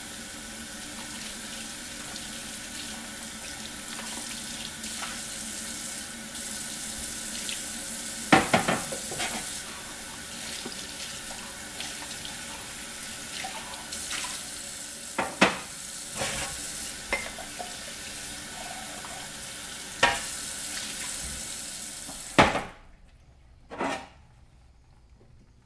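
Water running from a kitchen sink faucet, with several sharp clinks and knocks over the flow. The water cuts off suddenly about three-quarters of the way through, and one more knock follows.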